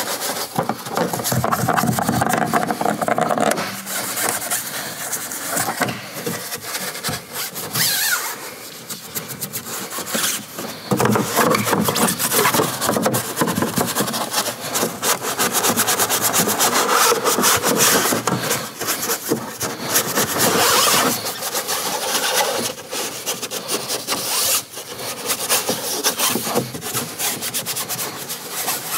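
Soft-bristle brush scrubbing a foam-covered plastic car door trim panel: a scratchy, wet scrub in quick back-and-forth strokes, stopping briefly now and then.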